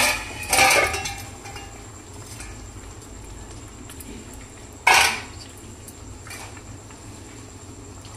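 Metal utensil clinking and knocking against metal cookware: a sharp clink at the start, a short cluster about half a second in, another strong clink near five seconds and a fainter one soon after.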